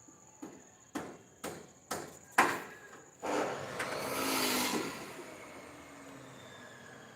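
Five hammer blows about half a second apart, the last one loudest, then a rasping noise lasting nearly two seconds that fades away.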